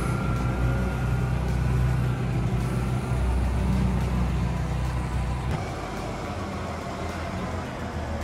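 Wheel loader's diesel engine running as the machine drives: a steady low drone that drops off noticeably about five and a half seconds in.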